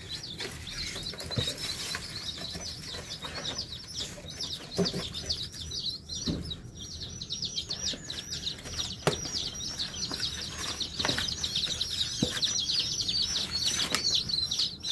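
Brood of day-old chicks peeping nonstop, a quick run of high, falling peeps several a second. Scattered knocks and rustles from a cardboard chick shipping box being handled.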